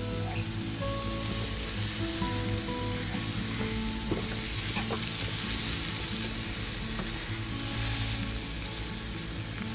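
Boiled potatoes and fried onion sizzling steadily in hot oil in a frying pan while they are pressed with a metal potato masher, with a couple of faint taps of the masher near the middle.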